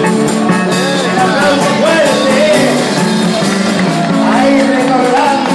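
Amplified party music: a voice singing a gliding melody over accompaniment with steady low notes and light, even percussion.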